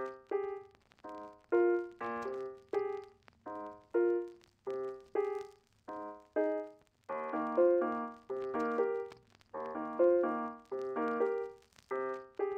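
Background music on a keyboard: a slow melody of separate struck notes, each fading quickly, with fuller chords coming in about halfway through.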